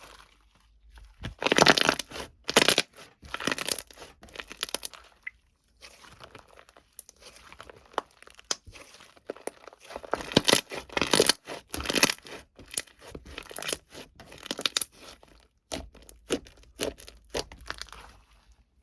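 Irregular rustling and crunching noises in uneven bursts, each cluster lasting about a second with short pauses between, loudest around two and ten to twelve seconds in.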